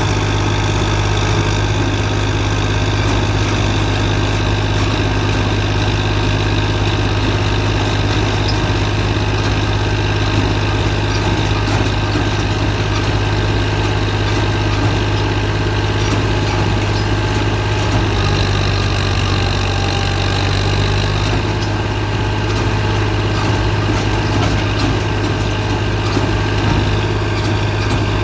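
Straw and husk baling press machine running with a steady, even drone and hum. About two-thirds of the way through, an extra tone joins for a few seconds.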